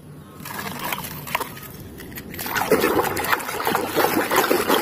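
Water splashing and sloshing as a muddy toy is scrubbed by hand under the water, growing louder about halfway through.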